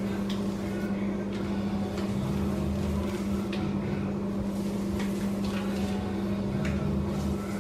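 Paint roller working thick, wet popcorn ceiling texture, giving a few faint, soft sticky crackles, over a steady low hum.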